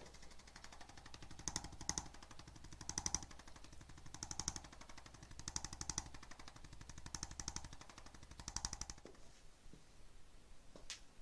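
Handheld percussive chiropractic adjusting instrument tapping rapidly on the body, swelling louder about every second and a half and stopping about nine seconds in; a single sharp click follows near the end.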